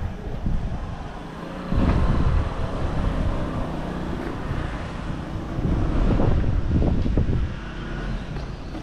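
Outdoor street noise with low, uneven rumbling that swells about two seconds in and again around six to seven seconds.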